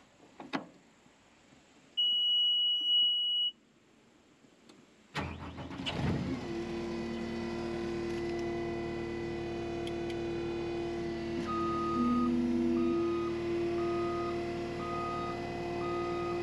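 Skid steer in its cab: a key-on warning beep sounds for about a second and a half, then the engine cranks and starts about five seconds in and settles to a steady run. Several seconds later a backup alarm begins beeping about once a second as the machine reverses.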